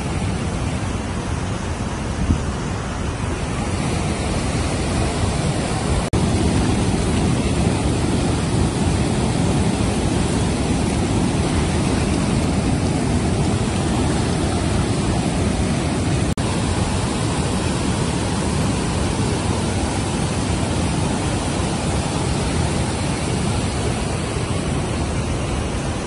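A waterfall and rapids in muddy flood, with a steady roar of rushing water. It grows a little louder about six seconds in.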